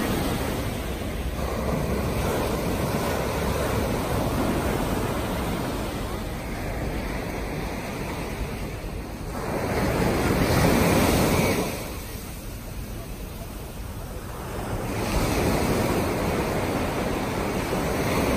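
Small surf breaking and washing up a sand beach, the rushing noise swelling and falling away with each wave; the loudest wave comes about ten seconds in.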